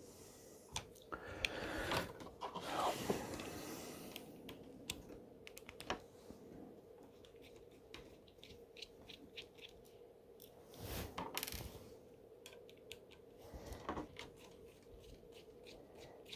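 Small clicks, taps and scraping of plastic laptop parts and screws being handled while the screen assembly is worked loose, with a longer scraping stretch near the start and another about two-thirds through, over a faint steady hum.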